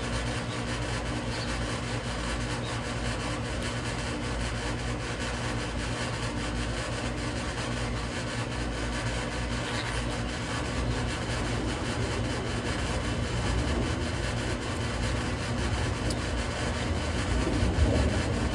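Air-conditioning unit running with a steady hum, and now and then a bite into watermelon.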